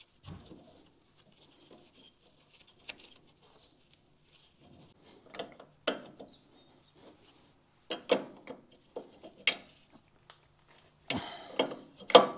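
Scattered clicks, knocks and rubbing of tools and small parts being handled, with the loudest cluster of knocks near the end.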